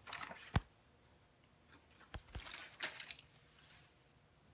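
A few light knocks and brief rustling as cat condo parts are handled on a hardwood floor: one sharp knock about half a second in, then a couple more knocks and a short rustle around two to three seconds in.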